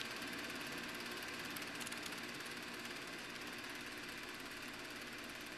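Reel-to-reel film projector running, a steady rapid mechanical whirring clatter.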